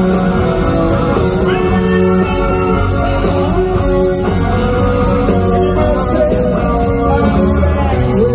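Rock band playing live in an arena, with electric bass, guitar and drums and a sung vocal line, recorded through a phone's microphone from the crowd.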